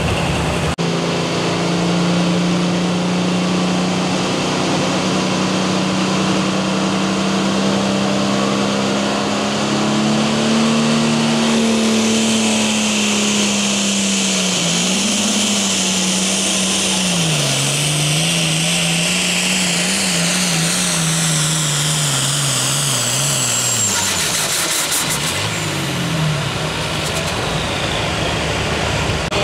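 International Harvester pulling tractor's turbocharged diesel running wide open under load, dragging the weight sled. The engine note holds steady, then wavers and sags as it bogs down, and falls off near the end as the pull stops. A high turbo whine slides down along with it.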